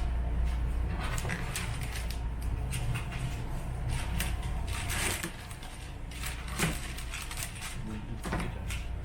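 Scattered light clicks and knocks of objects being handled, with a few louder knocks in the second half, over a low steady hum that fades about halfway through.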